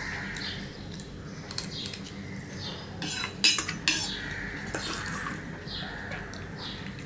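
Metal spoon scraping and clinking against a stainless steel bowl and plate as the last of the food is scooped up. The clicks are scattered, with the loudest run of them about three to four seconds in.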